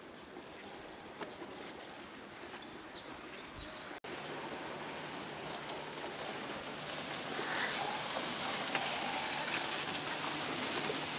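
A few faint bird chirps, then from about four seconds in a steady rustling and scraping of reeds and grass brushing along the wooden boat and past the microphone as it pushes into the reed bed.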